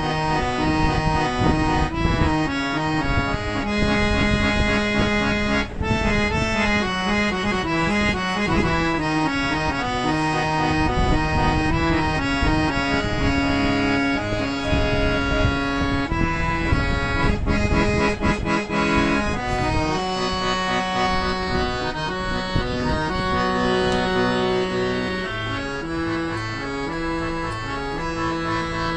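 Box harmonium with Palitana Mohonlal reeds being played, its bellows hand-pumped: a reedy melody of held notes over sustained chords, moving from note to note without breaks.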